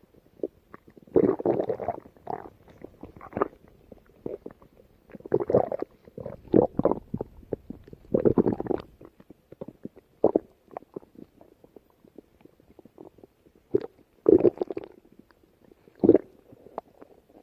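Stomach growling: irregular gurgling rumbles, some lasting up to about a second, with short quiet gaps between them. The loudest come about a second in and again about fourteen seconds in.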